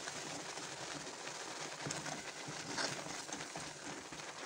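Milky bottle-gourd halwa bubbling and sizzling in a kadhai as it thickens, with a metal spoon stirring and scraping the pan in small clicks and taps.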